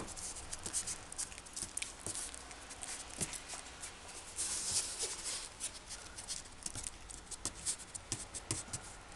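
Close-up soft rustling and scattered small clicks of a Maltipoo puppy mouthing and nibbling a person's fingers, with a louder rustle about halfway through.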